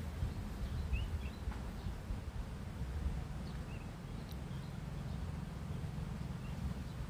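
Outdoor garden ambience: a steady low rumble with a few short, faint bird chirps, two close together about a second in and another a few seconds later.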